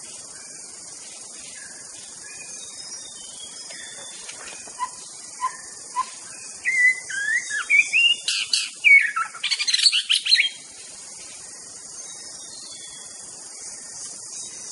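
White-rumped shama singing: three short clear whistles about five seconds in, then a loud burst of varied gliding whistles and fast chattering trills lasting about four seconds.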